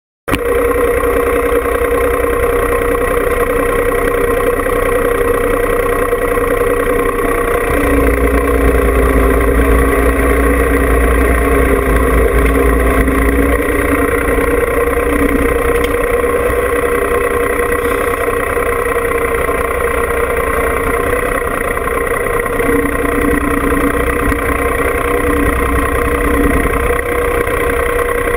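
John Deere 2305 compact tractor's three-cylinder diesel engine running steadily, heard up close from the tractor itself, with a heavier, deeper note for several seconds about a third of the way in and again near the end.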